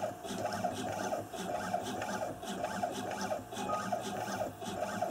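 Home-built coil winding machine running a winding cycle, its motors whining in a quick repeating pattern as it winds 0.14 mm copper wire onto the source coil of a Husqvarna SM/TE610 alternator stator.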